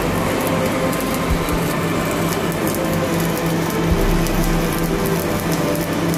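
Stick (shielded metal arc) welding on a pipe: the electric arc crackling and sizzling steadily, with a steady low hum beneath it.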